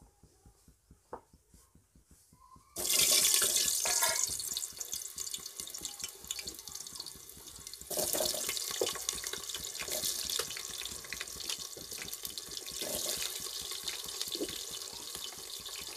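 Quartered tinda (round gourd) pieces hitting hot mustard oil, starting a loud sizzle suddenly about three seconds in. The sizzle flares up again about eight seconds in, then goes on as a steady crackling deep-fry.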